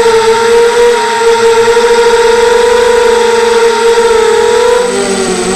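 Mini FPV quadcopter's electric motors and propellers whining steadily, heard from the camera on the craft itself; near the end the whine dips in pitch and wavers as the throttle changes.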